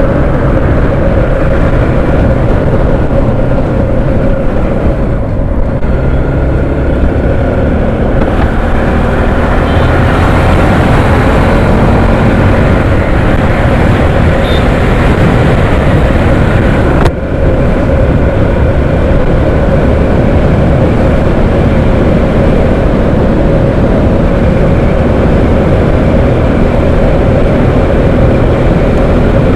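Motorcycle engine running steadily under way, mixed with rushing air noise, heard from the rider's seat. A brief click and dropout about halfway through.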